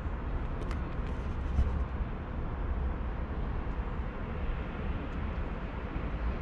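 Steady outdoor city street noise with a low rumble.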